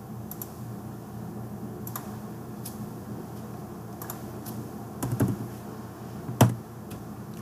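Scattered keystrokes on a computer keyboard as a number is typed into a field, about one tap a second, with a quick flurry about five seconds in and one louder keystroke near the end. A low steady hum lies underneath.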